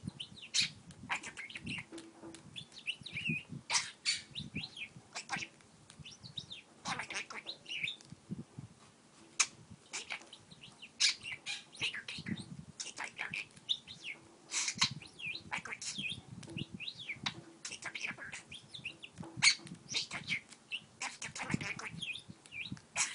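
Pet budgerigar chattering and warbling in quick runs of short chirps, with sharp clicks scattered through.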